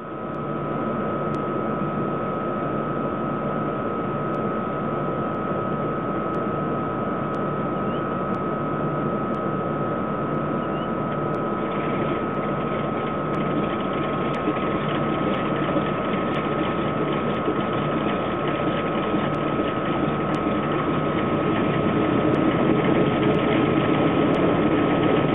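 A Douglas DC-3A's Pratt & Whitney radial piston engines idling on the ground, a steady low running drone with a constant high-pitched whine over it. The engines grow louder in the last few seconds.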